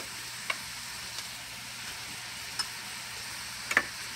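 Steady sizzle of peppers and onions frying in bacon grease in a pot on high heat. Three light knocks on the countertop as sliced kielbasa is scooped up by hand, the loudest near the end.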